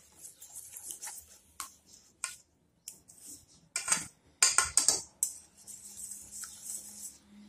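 Wire whisk beating a liquid quiche filling in a metal bowl, the wires clinking and scraping against the bowl in uneven runs of quick strokes, loudest a little past the middle.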